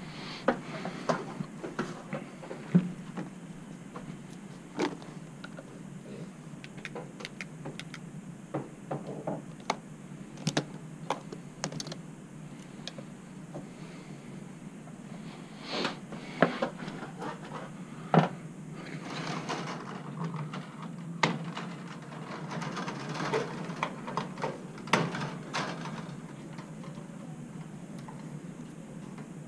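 Scattered clicks, taps and knocks of hand tools, wire connectors and parts being handled while fluorescent light ballasts are changed, over a steady low hum.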